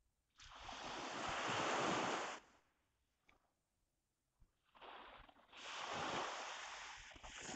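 Surf washing onto the beach, heard as two swells of noise, each building and fading over about two seconds; the second starts about halfway through.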